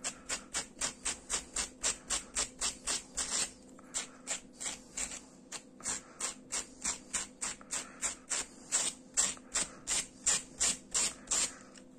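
A hand brush dragged briskly through crocheted yarn fringe in quick repeated strokes, about four a second, with a short pause about a third of the way in. The brushing separates the yarn strands and fluffs them up into fur.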